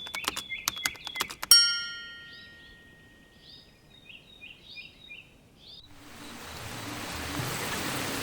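A quick run of clicking, ringing notes that ends in one loud ringing strike about a second and a half in, then small birds chirping, then steady rain fading in over the last couple of seconds.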